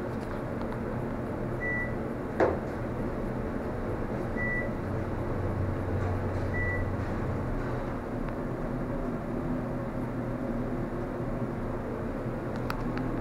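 Westinghouse bottom-drive elevator car travelling up with a steady hum, and three short high beeps about two and a half seconds apart as it passes floors. A sharp click sounds once, about two and a half seconds in.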